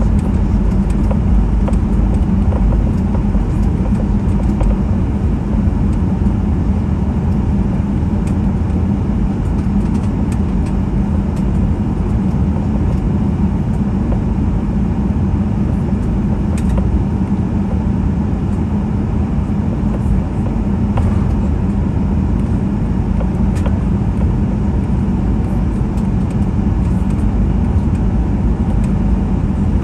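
Cabin noise inside a taxiing Boeing 737-800: the CFM56-7B engines at idle and the wheels rolling over the concrete taxiway give a steady hum and low rumble.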